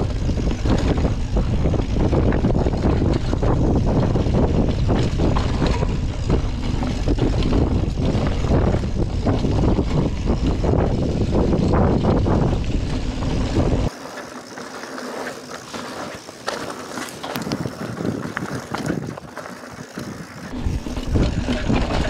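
Mountain bike riding a rocky dirt singletrack, heard from a handlebar-mounted action camera: wind buffeting the microphone, tyres on dirt and stones, and the bike rattling and clicking. The heavy low rumble drops away suddenly about two-thirds of the way through, leaving lighter clicks and rattles, and it picks up again near the end.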